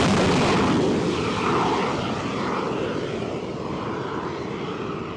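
Jet engine of an X-47B unmanned flying-wing aircraft climbing away just after a carrier catapult launch: a steady rushing jet noise that slowly fades as it draws off.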